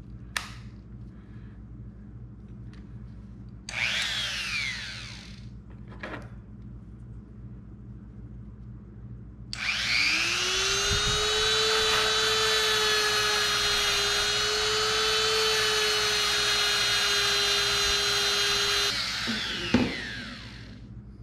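Small handheld rotary tool with a burr or polishing bit, cleaning up a freshly cast silver coin. It runs briefly about four seconds in, then spins up with a rising whine about ten seconds in, runs steadily for about nine seconds and winds down. A few sharp clicks come before and after the runs.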